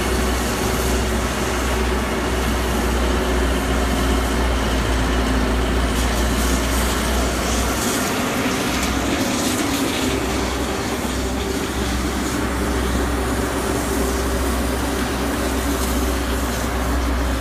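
Caterpillar 311C hydraulic excavator working: its diesel engine runs steadily under load while the hydraulics dig and lift a bucketful of mud.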